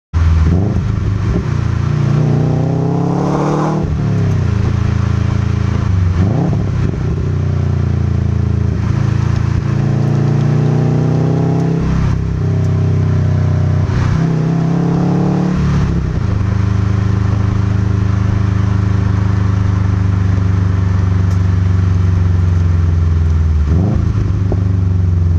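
Subaru WRX hatchback's turbocharged boxer flat-four heard at the quad exhaust tips of a Nameless Performance axle-back with 5-inch resonators, while driving. It revs up through the gears several times, the pitch dropping at each shift, then holds a steady cruise drone, and pulls again near the end.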